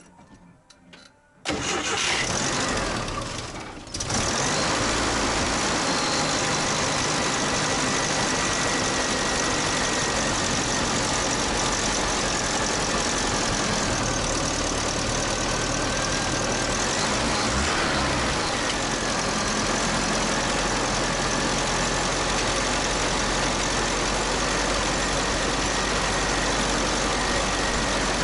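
UAZ 31512's four-cylinder carburetted petrol engine starting after long standing, with the carburettor primed and the fuel pump just filled: it fires about a second and a half in, dips briefly, then settles into a steady run.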